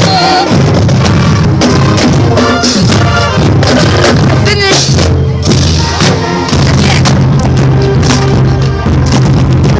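Loud music with a steady beat, drums and held bass notes.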